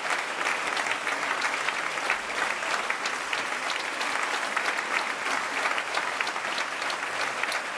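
Large audience applauding, many hands clapping in a steady, unbroken round.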